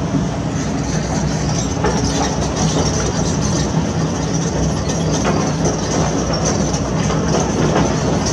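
Heavy construction machine's diesel engine running steadily under load, with scattered knocks and clanks throughout.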